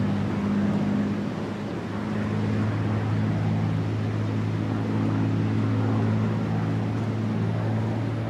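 P-51 Mustang's Merlin V-12 engine and propeller droning in flight, a steady low hum whose pitch shifts slightly as the fighter passes.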